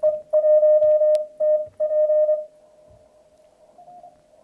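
Morse code (CW) tone of about 600 Hz from an MFJ-464 CW keyer sending through a Yaesu FTDX3000 transceiver, keyed on and off in a run of dits and dahs. After about two and a half seconds it drops to a faint tone, and there is a single click about a second in.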